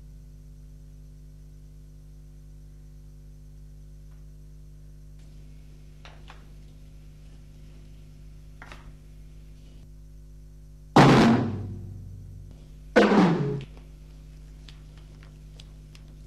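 Drum kit struck twice, two seconds apart: each a loud hit of drum and cymbal together that rings and dies away, the second cut short. Before the hits, a steady low hum with a few faint taps.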